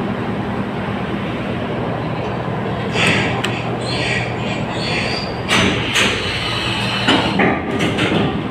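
Steady low drone and rumble of a ferry's engines heard on the enclosed vehicle deck, with several sharp metallic knocks and clanks from about three seconds in.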